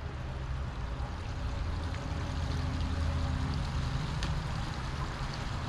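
Water running and splashing in a newly built backyard waterfall, with a steady low hum underneath.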